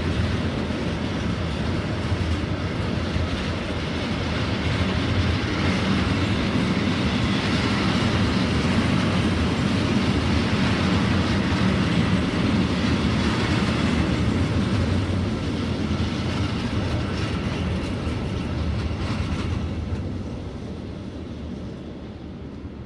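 A freight train of railway tank wagons rolling past on the rails, a steady heavy rumble of wheels on track. It dies away over the last few seconds as the tail of the train passes.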